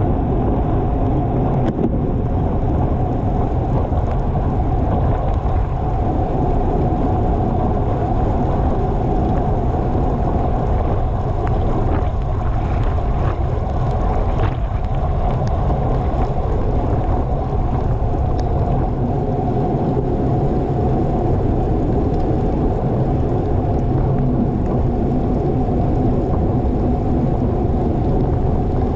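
Steady low rush of wind over the microphone mixed with road noise from a bicycle ridden at race speed.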